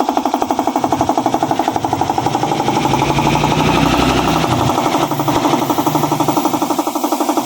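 A machine running with a rapid, even pulsing rattle, about a dozen beats a second, with a low rumble joining in midway.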